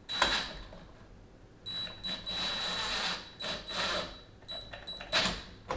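Cordless drill driving a small screw into a dishwasher junction box cover, its motor whining steadily in short runs: a brief burst, a longer run of about two seconds, then a few short bursts near the end.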